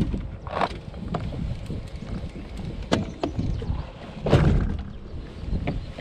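Knocks and clatter of rods and gear being handled on a bass boat's deck, with a louder thump a little past the middle, over a low rumble of wind on the microphone.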